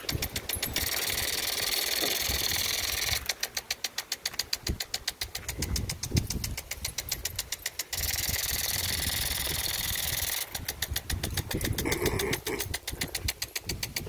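Lawn sprinkler running: runs of rapid, even ticking at about eight a second alternating with stretches of steady hiss from its spray.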